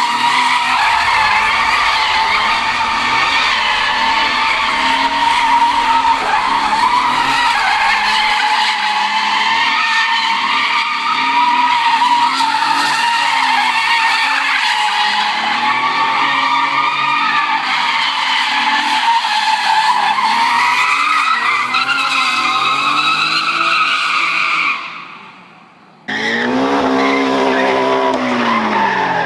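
Car tyres squealing loudly and without a break, wavering in pitch as in a burnout or drift, then fading out. After an abrupt cut near the end, a car engine revs with its pitch swinging up and down.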